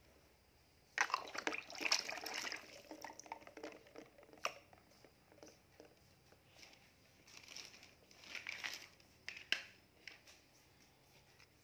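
Water splashing and lapping in a plastic basin as a plastic toy lobster is put into it and the floating toys knock about. The sound is a noisy burst of splashing starting about a second in, then scattered light taps, and more splashing a little later.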